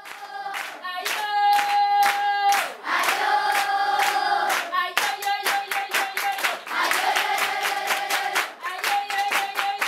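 A group singing together in unison, with steady rhythmic hand clapping keeping time.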